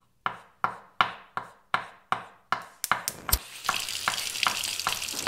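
Kitchen sound effects for a logo sting: a run of sharp taps like a utensil striking a pan, nearly three a second, quickening into a heavy thud about three seconds in, then a frying sizzle with lighter taps over it.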